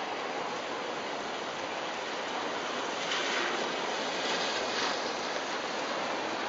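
Steady splashing of a fountain jet falling into its basin. Over it a Pontiac Grand Prix's tyres hiss on wet pavement as the car drives past, swelling about three seconds in and fading about two seconds later.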